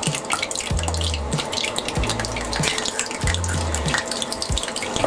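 An egg frying in plenty of hot oil in a non-stick frying pan: a steady crackling sizzle with spits and pops, just after the egg has gone in.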